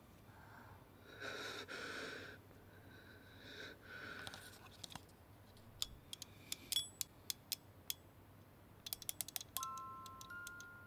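A string of small sharp clicks from a small mechanism being handled and wound, then, near the end, a music box starting a tinkling melody of chime-like notes. Soft breathy sounds come before the clicks.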